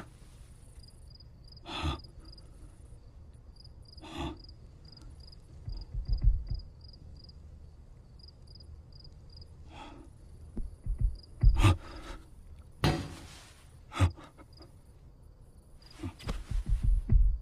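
Cricket chirping in a steady rhythm of about three short high chirps a second. A handful of sudden knocks and low thumps fall between the chirps, and the loudest comes about two-thirds of the way through.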